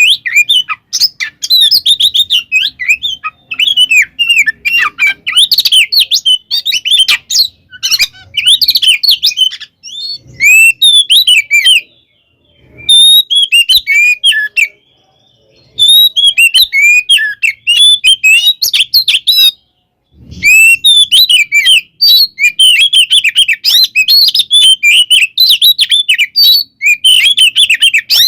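Oriental magpie-robin (kacer) singing a loud, fast, varied song of chirps and whistles, in long unbroken phrases with a few short pauses midway. This is the rapid, aggressive 'tarung konslet' style of song that keepers play to provoke other magpie-robins.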